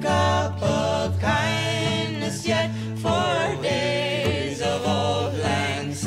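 Background music with singing voices over a steady bass line.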